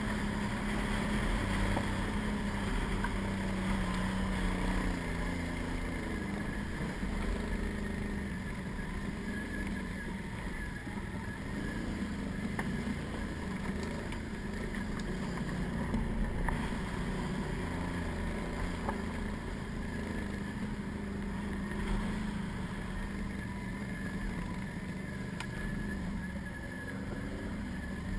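Can-Am ATV's 800 cc V-twin engine running while riding, its pitch rising and falling with the throttle.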